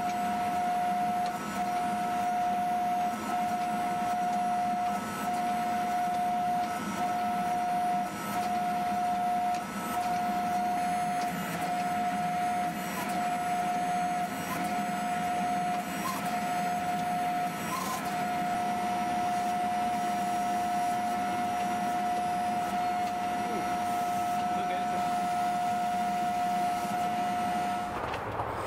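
Hydraulic forging press running with a steady, high-pitched whine from its pump and motor while its dies squeeze a red-hot Damascus steel billet. The whine dips briefly every second or two and cuts off near the end.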